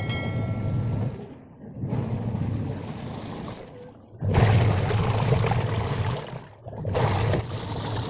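Videocon semi-automatic washing machine running its wash cycle: the motor hums low while the pulsator churns and sloshes water in the wash tub. It runs in stretches of about two seconds with short pauses between, as the wash action alternates direction.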